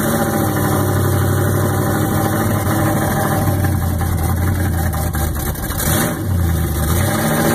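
An old truck's engine idling steadily, heard from inside the cab. Its low hum dips briefly about six seconds in and again near the end.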